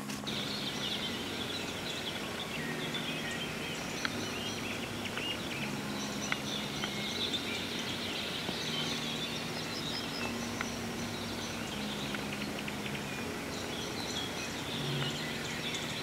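Evening chorus of songbirds: many overlapping chirps and song phrases. A faint low hum underneath shifts in pitch every second or two.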